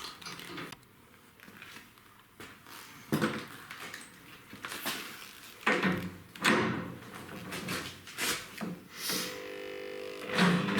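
Scattered knocks and clunks of tools and equipment being handled in a garage workshop, with a short buzzing tone near the end.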